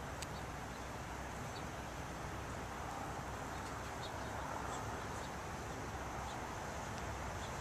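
Steady outdoor background noise during a held salute, with a few faint, brief high chirps scattered through.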